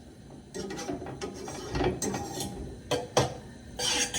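Irregular clicks, knocks and rattling of utensils and containers being handled on a kitchen counter, with a stretch of scraping or rattling near the end.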